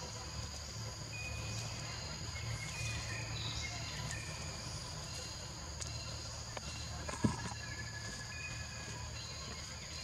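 A steady, high-pitched chorus of insects drones throughout, with a few faint short chirps over it and a single sharp knock about seven seconds in.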